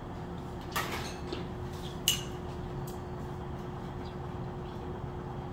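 Steady low hum of room equipment with a faint steady tone, broken by two short sharp clicks about a second apart, the second a brief clink.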